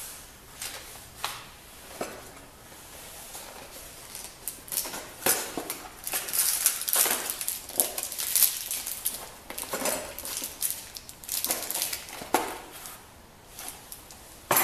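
Metal parts of a door knob lockset clicking and rattling as they are handled and fitted: a few separate clicks at first, then a busy run of clicks and scrapes through the middle, easing off near the end.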